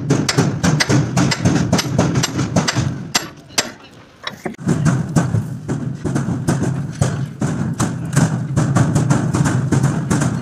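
Background music with a steady bass line and a fast percussive beat.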